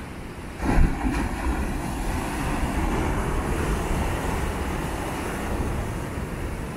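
Sea waves breaking against shoreline rocks, with a loud crash about a second in followed by a steady rushing wash of surf.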